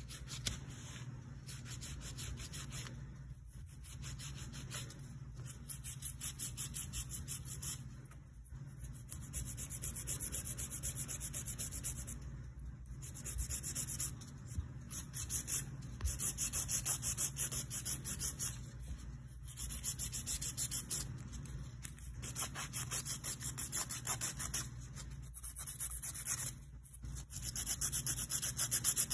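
Hand nail file rubbing back and forth across an artificial nail in quick runs of strokes, about four a second, with short pauses between runs.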